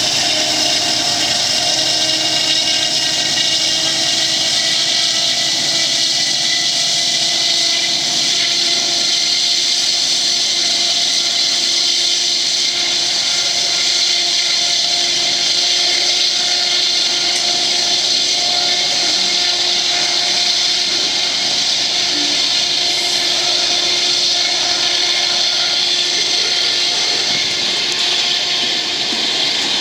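Diesel-electric locomotives of a loaded coal train working hard under load, starting the train on a grade: a loud, steady engine sound with a high whine over it.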